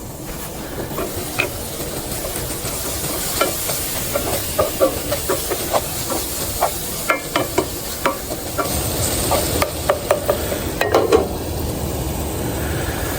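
Food being stirred in a cooking pot: irregular clicks and scrapes of a utensil against the pot, over a steady sizzling hiss.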